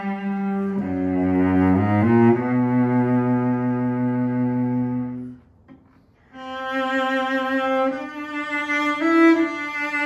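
Antique Saxon cello of about 1900 played with the bow: a slow phrase of low notes ending on a long held note, a pause of about a second past the middle, then a phrase of higher notes.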